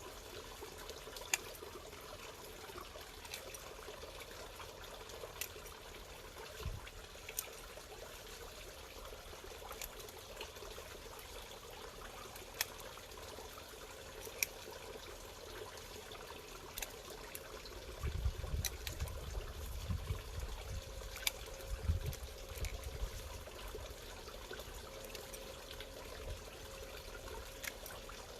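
Bubbling, trickling water running steadily, with scattered sharp clicks and a low rumble for a few seconds past the middle.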